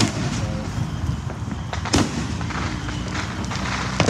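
Fireworks going off: three sharp bangs about two seconds apart, with scattered crackling between them.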